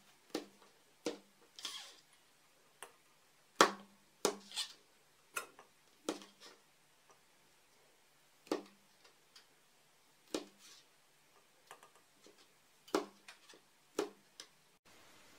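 Kitchen knife cutting chanterelle mushrooms on a plastic cutting board: irregular sharp taps of the blade striking the board, roughly one a second, with quiet in between.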